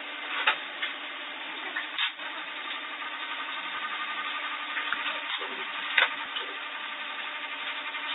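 A small motor running steadily, with a few sharp knocks or clicks over it.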